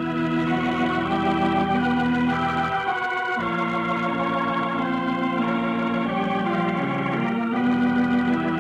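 Organ music in held chords that change every few seconds, a musical bridge raising the curtain on a radio drama's first act.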